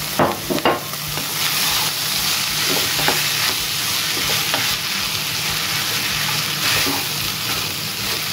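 Cooked rice frying in a pan with coconut oil, onion and green chillies, sizzling steadily as a wooden spoon stirs and scrapes through it. There are a few sharp knocks near the start.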